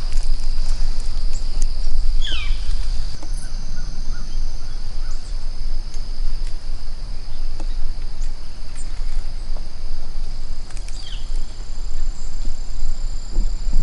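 Outdoor woodland ambience: a steady low rumble of wind on the microphone with a thin, steady high-pitched tone over it. Two short falling bird calls come through, about two seconds in and again near eleven seconds.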